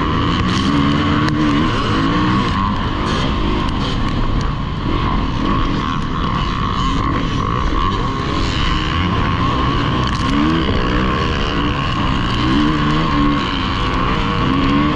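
Dirt bike engine running hard at race pace, its revs climbing and dropping several times as the rider accelerates and shifts, over a constant rough rush of wind and terrain noise.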